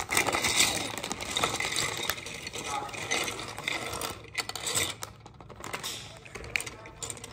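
Clear plastic LEGO parts bag crinkling as it is handled and shaken out, with small plastic bricks clicking and clattering onto a tabletop. The crinkling thins out after about four seconds into scattered clicks of loose pieces.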